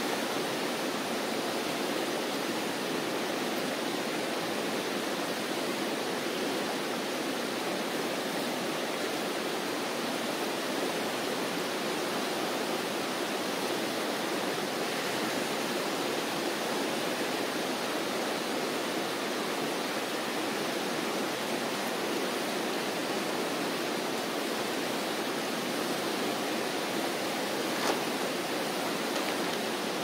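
Fast-running river rushing steadily, running high and fast with snowmelt. A single faint knock near the end.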